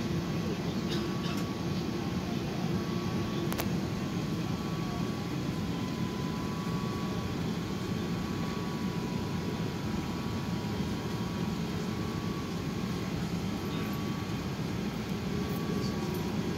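Steady cabin noise inside an Airbus A380 on the ground: a constant low rumble of the engines and air conditioning, with a faint steady tone and a single click about three and a half seconds in.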